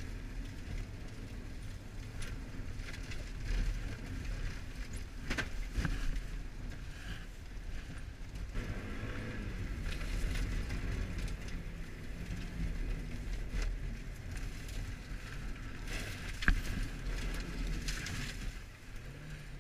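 1994 Mazda Miata's 1.8-litre four-cylinder engine, heard from inside the cabin, revving up and down as the car is driven on ice. A few sharp knocks cut through, the loudest one late on.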